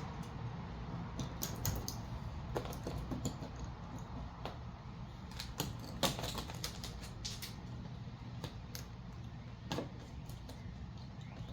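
Irregular sharp clicks and crackles of vinyl wrap film being worked by hand onto a car bumper, over a steady low hum.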